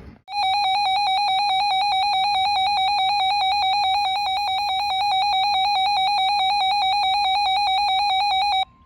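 Weather radio alert alarm sounding for an incoming severe thunderstorm warning: a loud, fast-pulsing electronic beep that starts suddenly and runs about eight seconds. Just before the end it cuts to a steady single-pitch tone, the start of the broadcast warning alarm tone.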